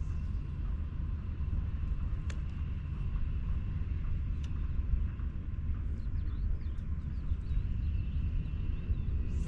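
Steady low rumbling outdoor background noise, with a few faint clicks.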